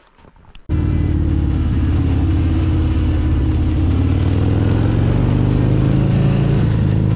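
Harley-Davidson Fat Bob 114's Milwaukee-Eight 114 V-twin engine running steadily while riding, starting suddenly under a second in. Background music plays with it, with an even high tick from about three seconds.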